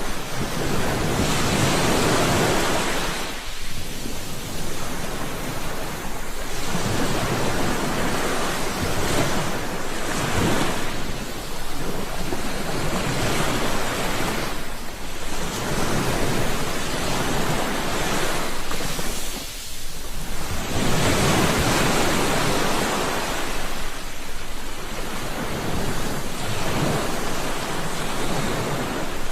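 Ocean surf: waves breaking and washing up a shore, the rush of water swelling and falling back every few seconds.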